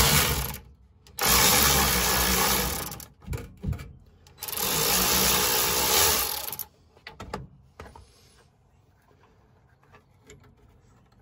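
A power wrench running twice, each run about two seconds, as it backs out the bumper's mounting bolts, followed by faint clinks.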